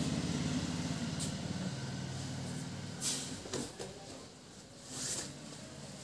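A low steady hum that fades out about two seconds in, then brief rustles of the waterproof fabric bag being shifted on the shoulder, about three and five seconds in.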